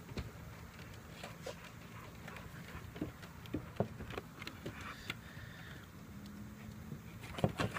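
A man drawing on a cigar and blowing out the smoke: soft lip smacks and small clicks as he puffs, then a breath out, over a steady low hum.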